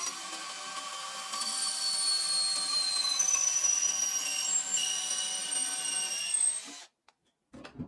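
A power tool running on wood with a steady high whine, cutting off abruptly about seven seconds in, followed by a few short knocks.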